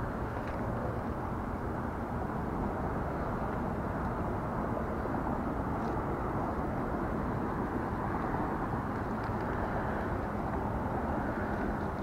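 Steady low rushing noise on a body-worn camera's microphone, with a few faint clicks.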